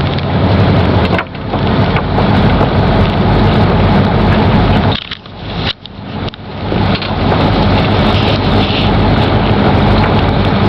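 Wind buffeting the microphone over the steady hum of the charter boat's engine as it motors along, with brief lulls about a second in and again around the middle.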